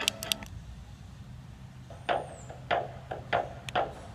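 Music from a small Bluetooth speaker cuts off with a few clicks as its mode button is pressed, followed by about five short knocks, roughly two-thirds of a second apart.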